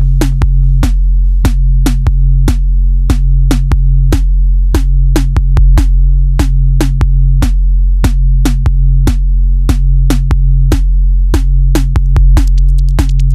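Electronic music: a dry, clicking drum-machine beat of about two to three hits a second over a steady, deep bass drone.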